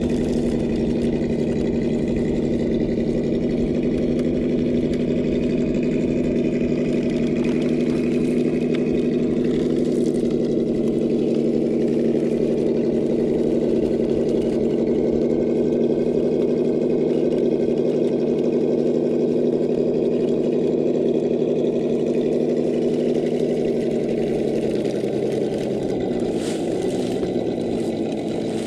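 Traxxas TRX-4 Defender RC crawler's electric motor and geared drivetrain whining steadily at a slow crawl under load as it climbs a boulder. The pitch shifts near the end.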